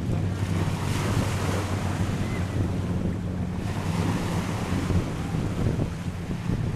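Sea waves washing on a beach, with wind buffeting the microphone and a steady low hum underneath.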